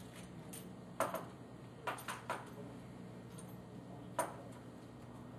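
Faint handling sounds: a few light clicks and rustles as self-fusing silicone tape is stretched and wrapped around a coax cable connector, over a low steady hum.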